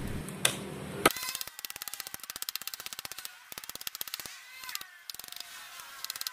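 Two sharp chops of a golok machete into a mango tree trunk, about half a second apart. They are followed by a fast run of faint, even clicking with small chirps.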